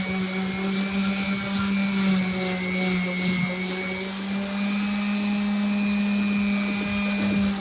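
Electric power sander fitted with 60-grit paper, running steadily while sanding a wooden speaker box, a constant motor hum with a raspy hiss of abrasive on wood.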